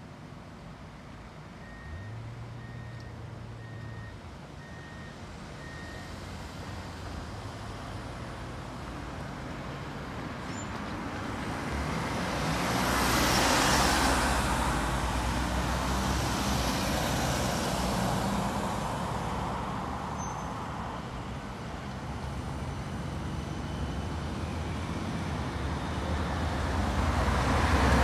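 Road traffic passing: a minibus drives by close, loudest about halfway through, and the traffic noise builds again near the end. A run of five short, evenly spaced beeps sounds a couple of seconds in.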